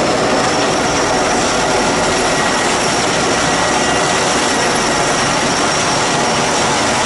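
Sikorsky S-64 Skycrane heavy-lift helicopter running steadily close by: a loud, even rush of turbine engines and rotor with a faint high whine over it.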